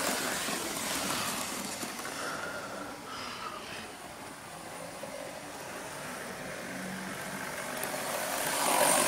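Hornby Pendolino model train running on its track, its electric motor and wheels on the rails giving a steady whir. It is louder as the train passes close at the start, fades as it goes around, and swells again near the end as it comes back.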